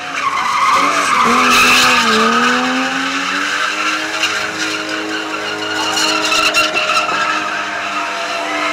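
BMW E30 coupe spinning: engine held high in the revs with tyres squealing continuously. The revs dip a second or two in, climb back, then hold steady.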